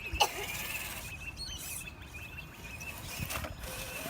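Radio-controlled rock crawler's electric motor whining faintly as it crawls at low speed, with one sharp knock just after the start.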